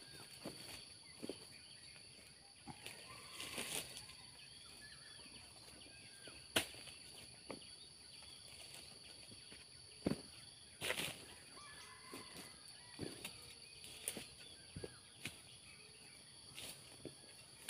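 Sharp knocks and scrapes a few seconds apart from a harvesting chisel (dodos) on a long aluminium pole working at the base of oil palm fronds, with some rustling of leaves. Under them runs a steady high insect drone.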